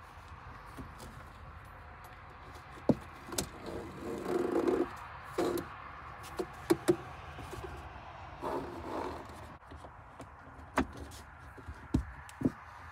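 Bungee cords being stretched and hooked: a handful of sharp clicks and clacks as the metal hooks knock together and catch, with rustling handling noise between them.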